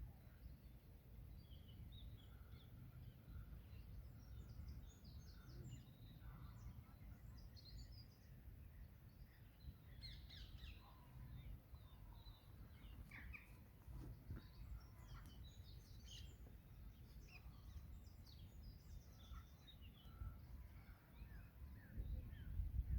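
Faint outdoor birdsong: many short chirps and twitters from several small birds, scattered throughout, over a steady low rumble.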